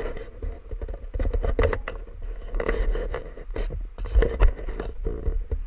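Wind rumbling on the microphone while edges scrape irregularly over hard-packed snow on a groomed slope, with the sharpest scrapes a little past four seconds in.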